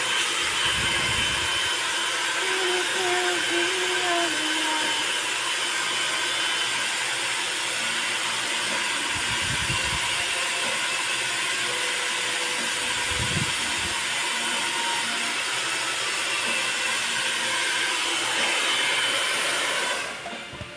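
Handheld hair dryer blowing steadily, switched off suddenly near the end.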